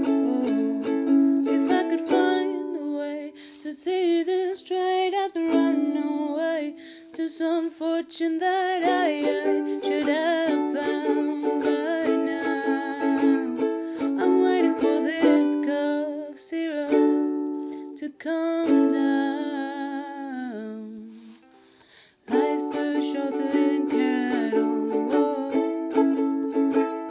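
A ukulele strummed in a small room with a woman singing over it. The playing fades almost to nothing about 22 seconds in, then the strumming starts again.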